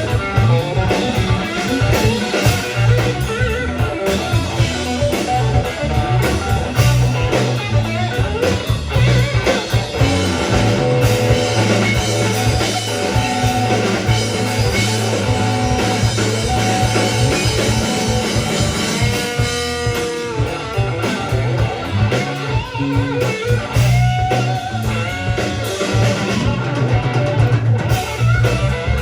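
Rock band playing: electric guitar over bass and a drum kit, with a bluesy feel.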